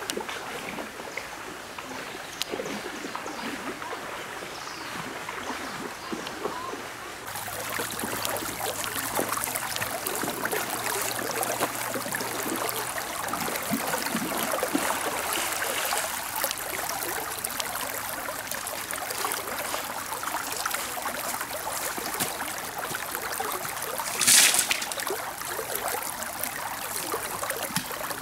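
Shallow stream water running and rippling over stones, a steady rush that turns louder and brighter about seven seconds in. A short, louder burst of noise comes near the end.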